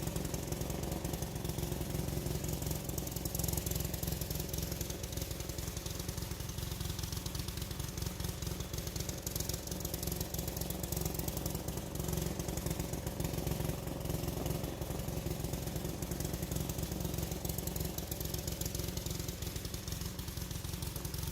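A small engine running steadily at constant speed, a low rumble with a rapid, even pulsing.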